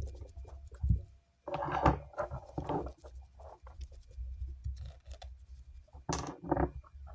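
Handling noise: small containers and objects being picked up, scraped and rustled on a work surface, in irregular short bursts that are busiest near the start and again near the end.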